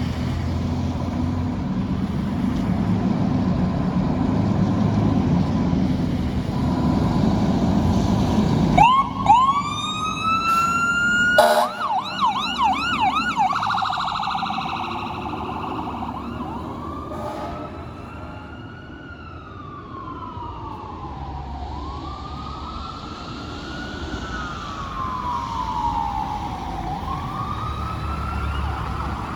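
Fire engine's electronic siren: it cuts in about nine seconds in with a rapid run of rising 'phaser' chirps, switches to a fast warbling yelp, then settles into a slow wail rising and falling every few seconds. Before the siren starts, a low steady rumble of the heavy truck and traffic.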